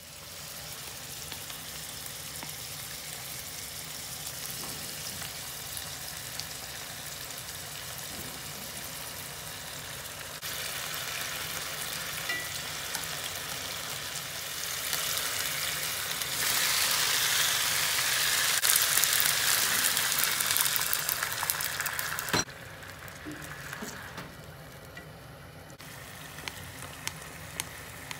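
Thin-sliced meat frying and sizzling in a pan while it is stirred with chopsticks. The sizzle gets louder in two steps, then drops off suddenly a little past two-thirds of the way through, leaving a quieter sizzle with a few light clicks.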